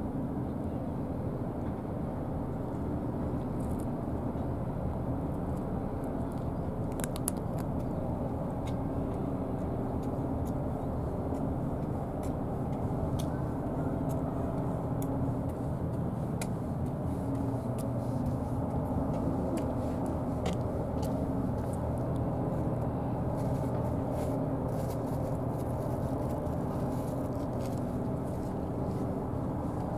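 Steady low engine rumble, with a few faint scattered ticks over it.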